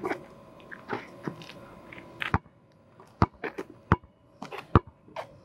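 A basketball being dribbled on an asphalt court: sharp single bounces, a few spaced out at first, then coming faster, about three a second, in the second half.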